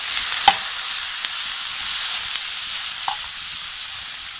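Pieces of moose fillet sizzling steadily in butter in a hot frying pan as they are browned all over. A utensil knocks sharply against the pan about half a second in, and more faintly about three seconds in.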